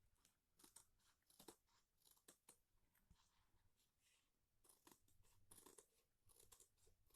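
Faint, irregular snips of scissors cutting through fabric.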